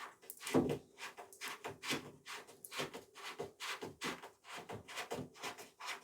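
Irregular handling noises of parts being worked by hand: quick scrapes, rustles and light clicks, two or three a second.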